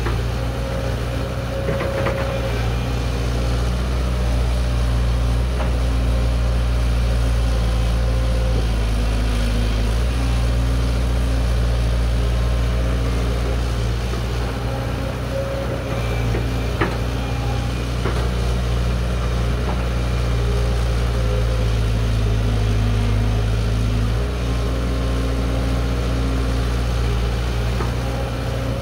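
Diesel engine of a Caterpillar 312B hydraulic excavator running steadily while it digs and swings loads, its pitch shifting a couple of times as the hydraulics load it. A couple of sharp clanks stand out above it.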